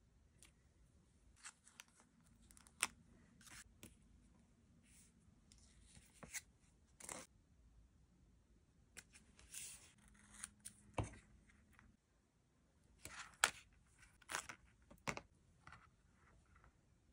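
Quiet handling of washi tape and a paper card: tape pulled from the roll, torn off and pressed down. Scattered sharp clicks and a few short scratchy bursts.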